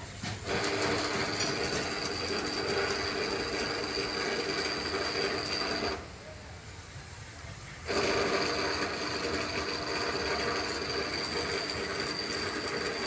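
A machine running with a steady whirr and a few held tones, cutting out about six seconds in and starting again about two seconds later.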